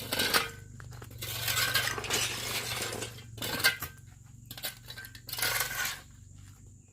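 Clinking and clattering of small hard objects being handled, with several stretches of scraping or rustling between the sharp clicks.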